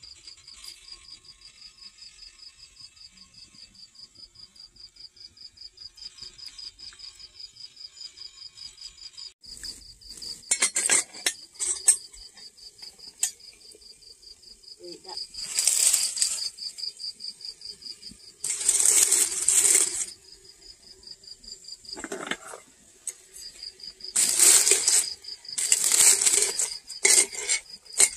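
Crickets chirping in a steady, rapid, even pulsing trill. From about ten seconds in, several loud bursts of metal clattering and scraping as a stainless steel pot and its lid are handled, the loudest near the end.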